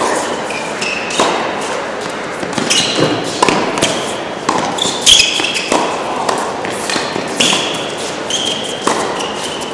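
Tennis rally in an indoor hall: racket strikes and ball bounces at an irregular pace, with short high squeaks of shoes on the court between them, echoing in the hall.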